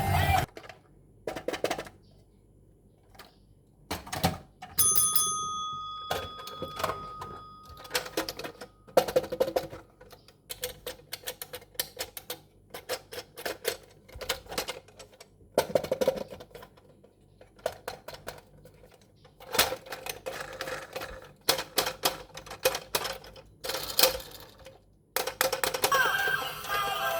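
Toy packaging being handled and opened: irregular runs of sharp clicks, taps and crackles with short quiet gaps, and a steady high tone lasting a few seconds about five seconds in.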